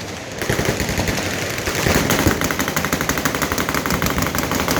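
Machine guns firing on full auto, several guns going at once in overlapping strings of rapid shots. From about two seconds in, one fast, even string stands out.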